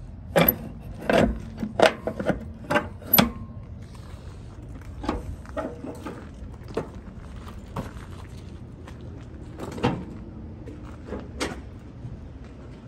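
Footsteps on gravel: a quick run of sharp steps about two a second for the first three seconds, then a few scattered ones, over a steady low hum.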